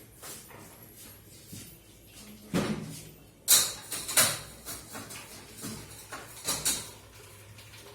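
Kitchen handling noises: a few knocks and short scraping hisses of pots and dishes being moved. The loudest comes about three and a half seconds in.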